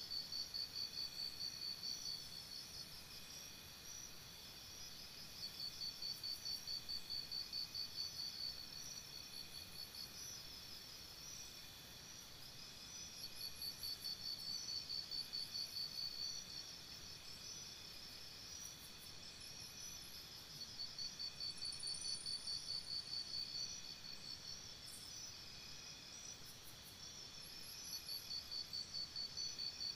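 A chorus of crickets chirping. One insect's fast pulsed trill swells in bouts of two to three seconds, about every seven seconds, over the steady high trilling of others.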